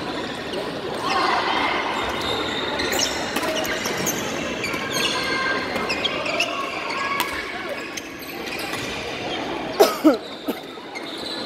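Badminton rally in a large sports hall: sharp racket strikes on the shuttlecock and sneaker squeaks on the wooden court, echoing, over a constant murmur of voices from other courts. The loudest moment is a pair of sharp sounds with squeaks shortly before the end.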